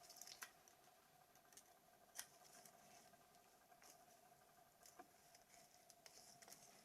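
Faint, scattered light clicks and scrapes of small plastic phone parts being handled and fitted during reassembly, over a faint steady hum.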